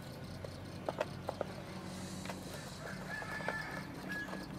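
Ducklings feeding from a grain tray, with sharp clicks of bills pecking about a second in and short peeping calls near the end, over a steady low hum.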